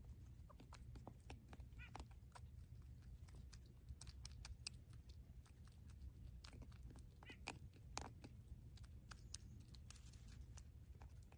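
Baby porcupine (porcupette) giving two short, high squeaks, among many faint clicks and taps.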